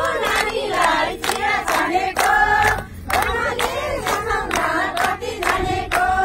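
A group of women singing a song together in chorus, clapping their hands in a steady rhythm of about two to three claps a second.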